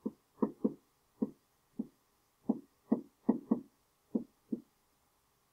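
Pen tapping and knocking against the surface of an interactive whiteboard while handwriting on it: about eleven short taps at an uneven pace, some in quick pairs.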